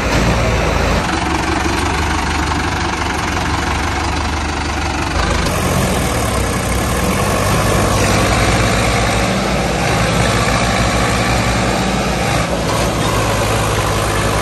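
Diesel tractor engines running steadily under load while one tractor tows another, stuck with its loaded trolley, out of mud on a chain. The engine sound changes abruptly a few times.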